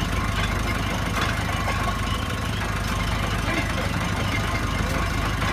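An engine running steadily at a low, even pace.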